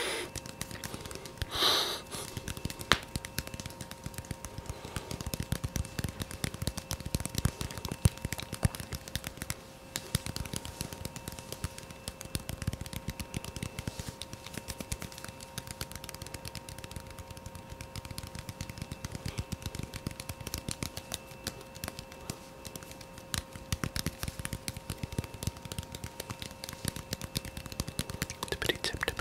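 Fast ASMR tapping: a dense, rapid run of soft clicky taps of uneven loudness, with a faint steady hum underneath.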